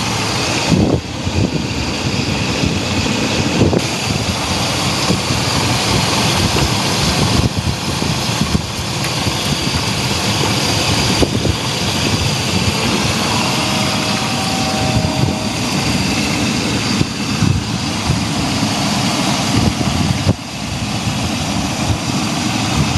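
Chevy Astro van engine idling steadily, with a few short light knocks over it.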